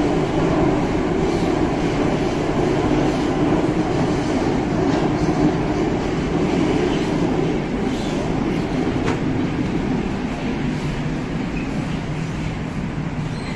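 Steady rumble and wheel-on-rail noise of a metro train running through a tunnel, heard from inside the carriage, with a few faint clicks and easing slightly near the end.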